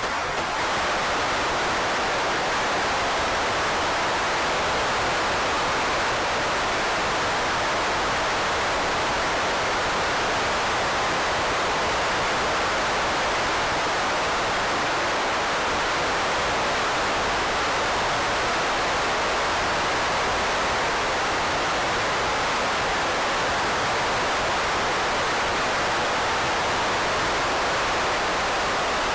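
Steady, even hiss like static, unchanging in level, with no engine or propeller sound heard: the audio track is faulty at this point.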